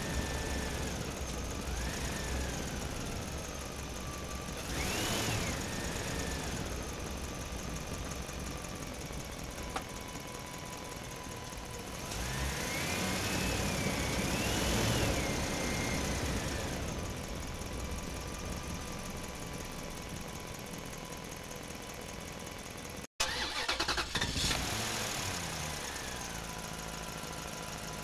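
A vehicle engine running and revving, its pitch rising and falling, with one swell about 5 seconds in and a longer one from about 12 to 16 seconds in; the sound cuts out for an instant about 23 seconds in.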